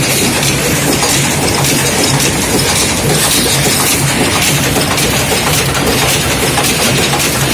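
Automatic screw-making machines running at speed: a loud, steady, rapid metallic clatter of the reciprocating die mechanism, with no let-up.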